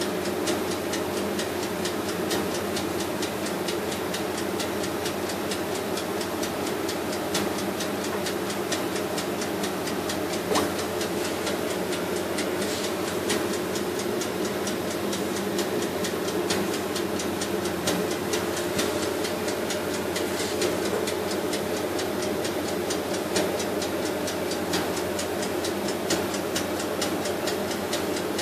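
Pieces of dough cooking in a pan: a steady hiss full of fine crackles, with a low steady hum beneath.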